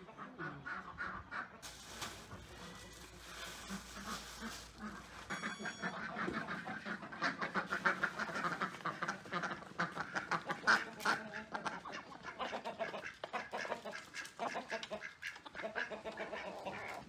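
Farmyard ducks quacking in quick, overlapping runs as the flock crowds around a basin of greens, loudest in the middle of the stretch.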